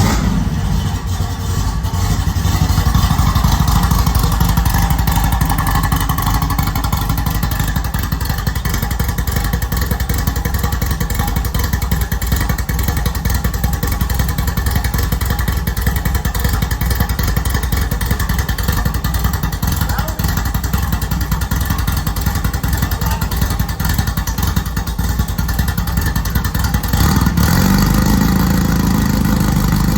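Newly installed 1776cc air-cooled VW flat-four in a rally Beetle catching on its first start and running steadily with a deep rumble; the engine note picks up near the end.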